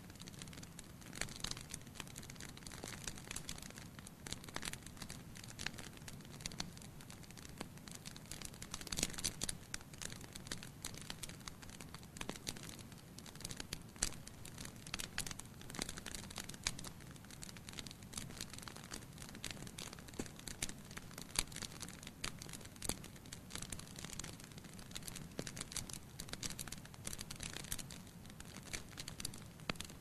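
Wood fire burning in a fireplace: the logs crackle with frequent, irregular sharp pops over a steady low background.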